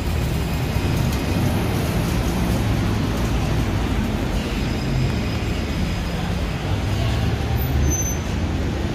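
City street traffic in heavy rain and wind: a steady rushing noise over a low rumble.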